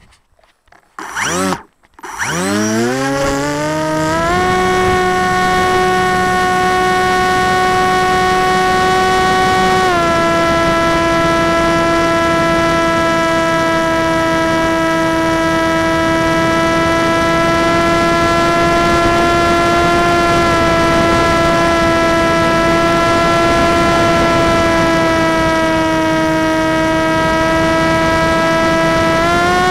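Electric motor and propeller of a Mini Arrow RC flying wing, heard up close from a camera mounted on the plane: a whine that rises steeply as the motor spins up about two seconds in, then holds steady in flight, dropping a little in pitch about ten seconds in and rising slightly near the end.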